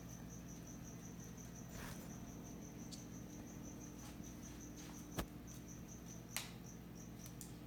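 Quiet room with a steady high-pitched chirping that repeats about four to five times a second, and a few faint clicks.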